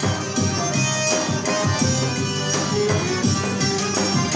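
Forró band playing an instrumental passage with a steady beat, with no singing.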